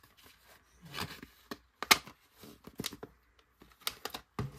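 Clicks and rattles of a clear plastic pen case being opened and a needle-tip pen pulled from it: about five sharp plastic clicks, the loudest about two seconds in.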